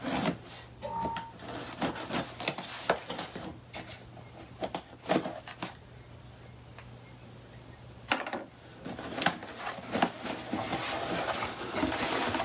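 Pocket knife slicing through packing tape on a cardboard box, then the box being handled and its cardboard flaps pulled open, with scattered knocks, scrapes and rustling.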